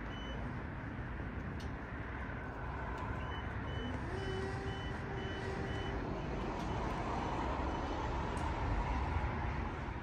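Heavy demolition machinery with its diesel engine running and a backup alarm beeping steadily, about two to three beeps a second, near the start and again from about three to six seconds in.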